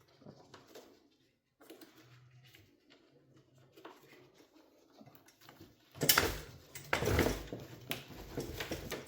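Cable ties being pulled tight to strap a plastic car bumper to a stand: faint handling noises, then about six seconds in a few seconds of louder rasping and knocking.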